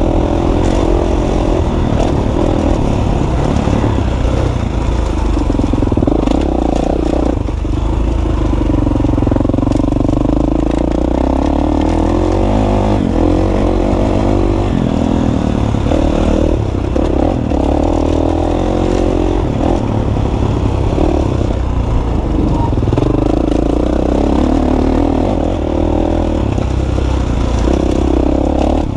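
Dirt bike engine running under way on a rough track, its revs rising and falling with the throttle.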